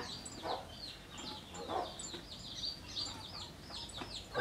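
Chickens clucking now and then over a constant quick, high twittering.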